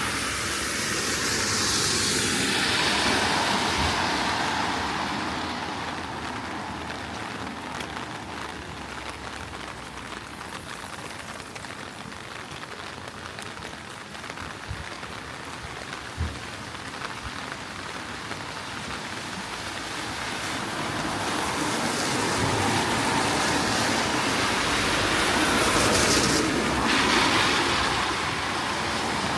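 Steady heavy rain on wet pavement, with vehicles passing on the wet street: tyre hiss swells and fades at the start and again about twenty seconds in.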